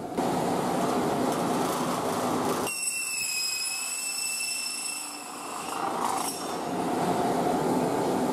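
Steady machine noise of a pipe-making line. About three seconds in, a motor-driven circular saw gives a high, steady whine for about three seconds as it cuts a plastic pipe to length. The steady machine noise then returns.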